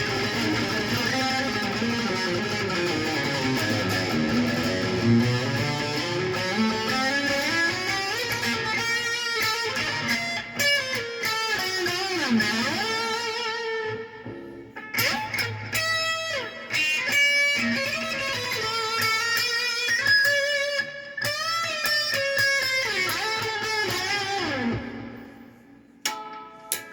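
Solo stringed instrument being practised: notes slide and waver in pitch, flowing continuously at first, then breaking into separate phrases that fade out near the end.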